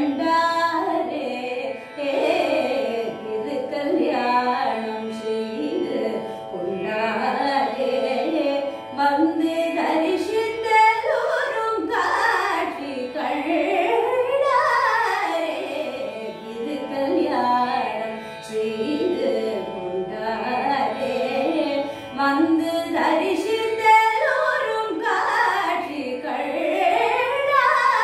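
A woman singing Carnatic music in raga Mohanam: long phrases that glide up and down in pitch without clear words, over a steady drone.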